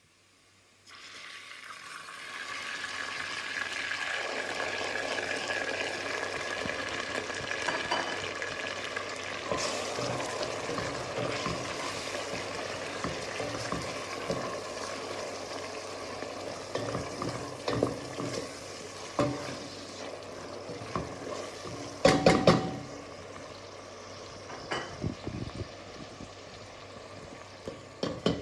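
Food sizzling as it fries in a pan, a dense hiss that starts suddenly and builds over a few seconds, with scattered knocks and scrapes of a cooking utensil against the pan, the loudest cluster about three-quarters of the way through.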